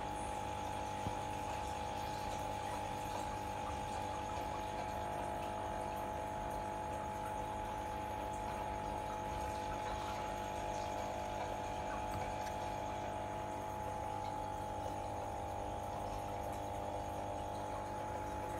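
Aquarium air pump humming steadily, driving an air stone, with a faint sound of water.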